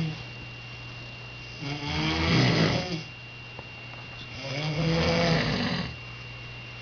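Snoring: two long, pitched, voice-like snores about three seconds apart, each lasting about a second and a half, over a faint steady hum.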